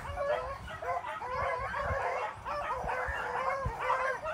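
A pack of beagles baying on a rabbit's trail, several hound voices overlapping in a steady, unbroken chorus.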